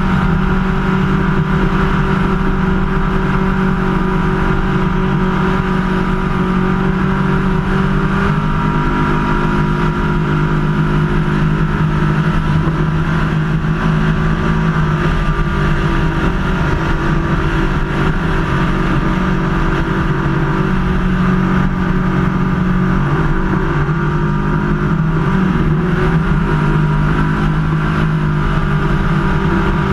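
Superclass ski race boat's engine running at high revs at racing speed, heard from the open cockpit. It is a loud, steady drone with a few brief dips and wobbles in pitch.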